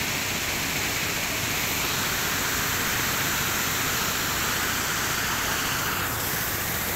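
Steady rush of moving river water, an even hiss with no break.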